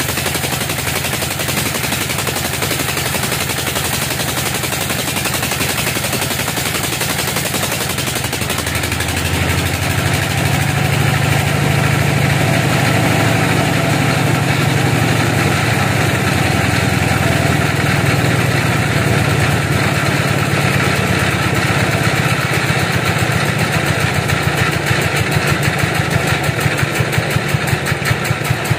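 Bandsaw mill sawing a large teak log and running on as the carriage is reset, a loud, continuous machine noise. A deeper engine hum comes in about a third of the way through, and near the end the running beats in even pulses about twice a second.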